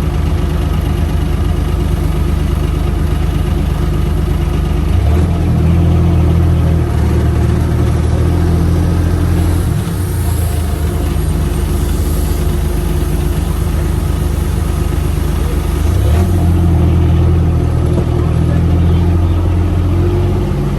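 A UTV's engine running at idle, growing louder and heavier twice, about 5 seconds in and again about 16 seconds in, each time for several seconds before settling back.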